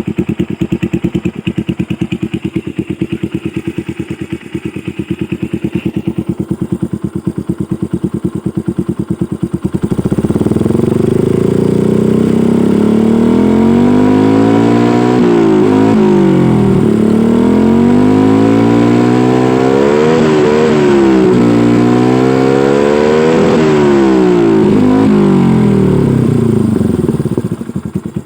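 A Yamaha Byson's carburetted single-cylinder engine runs through an SC Project aftermarket exhaust fitted with a dB killer. It idles with an even, steady pulse, then from about ten seconds in it is revved up and down repeatedly, and it drops back to idle near the end.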